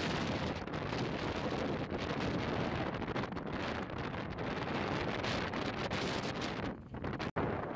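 Wind buffeting the microphone: a dense rushing noise with frequent gusts, breaking off abruptly for an instant near the end.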